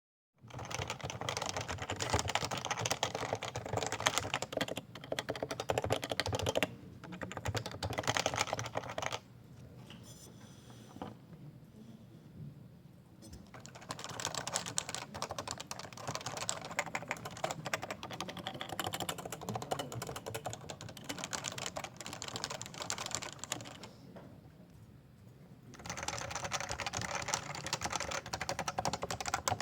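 Rapid typing on Topre electrostatic-capacitive keyboards, with rubber-dome switches over springs giving dense clacking keystrokes. The typing drops to a much quieter stretch twice, about a third of the way in and again near the end.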